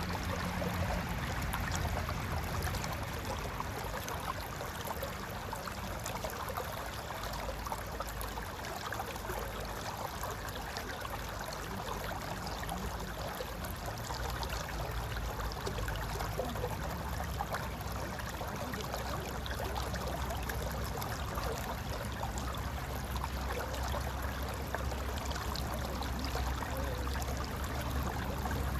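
Mountain river flowing over rocks: a steady rush of water with gurgling and trickling.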